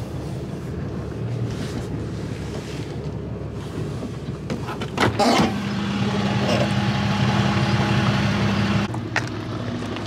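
Tow truck engine running steadily. About five seconds in there is a loud clunk, followed by a louder, steady hum that stops shortly before the nine-second mark.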